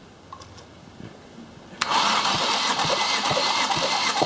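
Ford 2.0 Duratec four-cylinder engine being cranked over without running for a compression test: a loud steady whir and rush of air starts about two seconds in, with a low thump about twice a second from each compression stroke in the tested cylinder.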